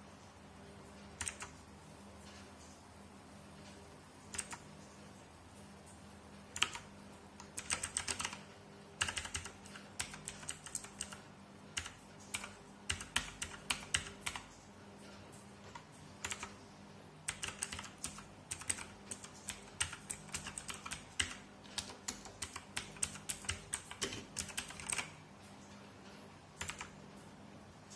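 Redragon K551A Vara mechanical keyboard with clicky blue switches being typed on. A few single keystrokes come first, then runs of fast typing with short pauses, and one last keystroke near the end.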